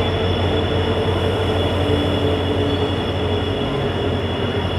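Train running steadily along the track, an even noise with a strong low hum and no clear wheel clicks.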